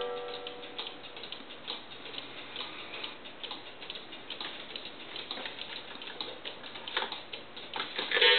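Mechanical one-day cuckoo clock ticking steadily. A few louder clicks come near the end as a hand reaches into the clock's works.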